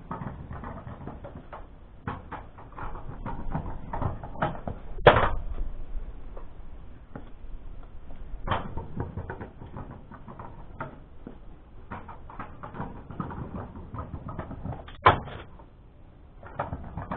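Kick scooter rolling over concrete paving slabs: a low rolling rumble with irregular clicks and clatter from the wheels and deck. There are two loud sharp knocks as the scooter hits the paving, about five seconds in and again about fifteen seconds in.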